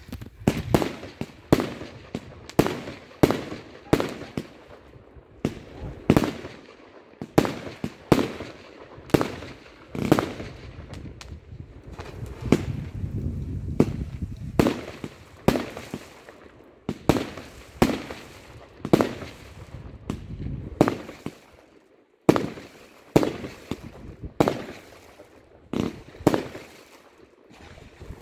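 Aerial fireworks bursting overhead in a steady series of sharp bangs, about one to two a second, with a denser rumbling stretch about halfway through.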